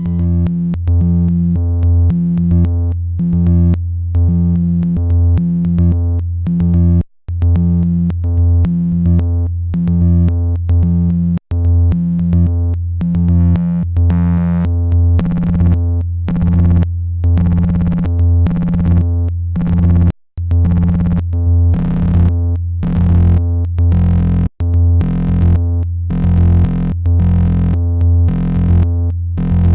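Eurorack analog synth voice through a Noise of Antimatter Subshaper subharmonic generator, self-patched with its aux output feeding its own channel D CV input. The self-modulation gives a loud, low synth tone whose subharmonic pitches step in a shifting, stuttering pattern, cutting out briefly four times.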